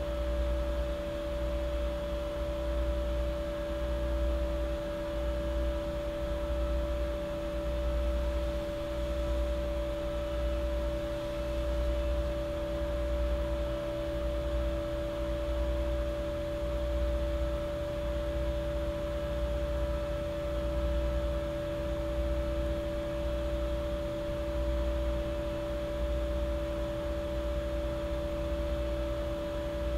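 PC cooling fan spinning freely in open air at speed: a steady whir with two held tones, one higher and one lower, over a low hum that swells and fades about once every second and a half.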